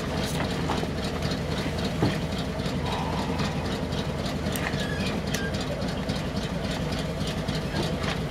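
Truck engine idling steadily, with scattered knocks and clatter of gear bags and drums being loaded onto its wooden cargo bed.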